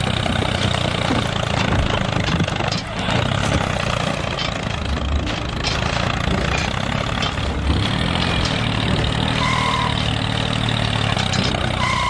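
Tractor-type engine running steadily at idle with a continuous low rumble, accompanying a miniature model tractor pushing gravel with its bulldozer blade.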